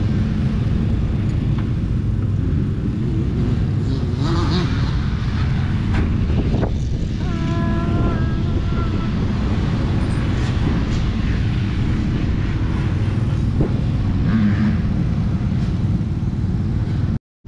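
Steady low rumble of motorcycle engines running, with a short steady tone about seven seconds in. The sound drops out for a moment just before the end.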